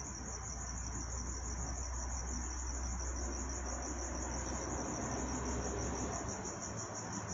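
Crickets chirping in a steady, rapid, high-pitched pulsing trill, with a low rumble underneath for the first five seconds or so.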